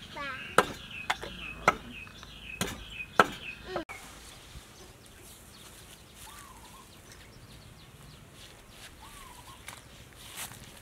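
A cleaver chopping on a wooden cutting board: about five sharp, separate strikes in the first three seconds. Then quiet outdoor background with a few short bird calls.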